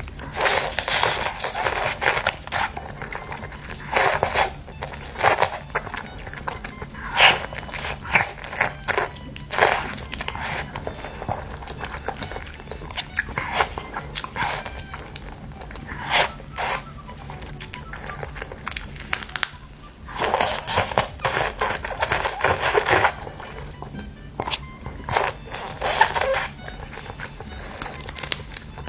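Close-up crunchy bites and chewing of crispy chicken, coming in irregular bursts and short runs of crackling crunches, over background music.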